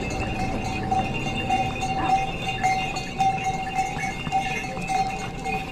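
Pony's hooves clip-clopping on a stone mountain path, with a steady ringing tone that swells about twice a second in step with its gait.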